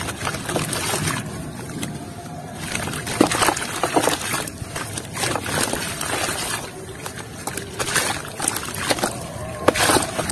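Hands crumbling a lump of red soil into a basin of muddy water: irregular crunching and crackling of the soil breaking apart, mixed with water sloshing and splashing.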